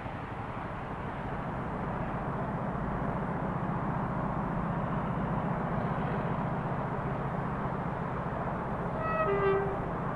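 Diesel locomotive hauling a railhead treatment train, its engine running steadily as it approaches. About nine seconds in it sounds its two-tone horn, a short high note and then a louder low note.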